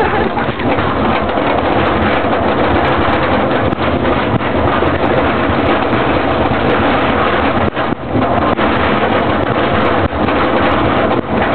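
Súper Tornado roller coaster running, a loud steady rumbling rush of train and track noise mixed with wind buffeting the microphone, dipping briefly twice in the second half.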